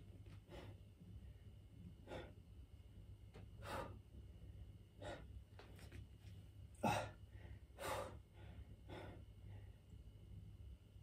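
A man breathing hard and sharply through an ab workout of leg raises. There are about eight short, forceful breaths, roughly one with each repetition, and the loudest comes about seven seconds in.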